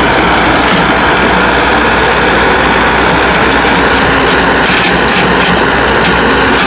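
Kobelco SK045 mini excavator working, its diesel engine running steadily with a dense mechanical clatter over it.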